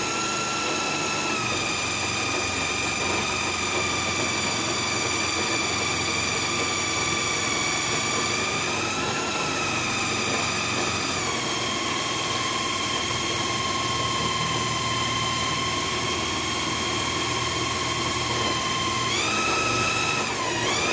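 A power drill spins a teak dowel in a homemade table-saw lathe, its motor giving a steady high whine over a rough rushing noise from the work. The whine drops slightly in pitch about eleven seconds in, then rises and dips briefly near the end as the load on the drill changes.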